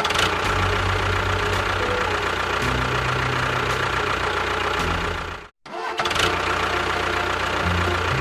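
An engine running steadily, with a dense noisy sound over low steady tones; it cuts out abruptly for a split second about five and a half seconds in, then carries on.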